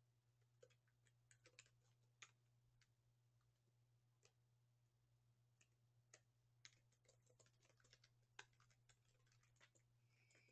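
Near silence over a low steady hum, broken by faint, irregular clicks of typing on a computer keyboard, in two short flurries.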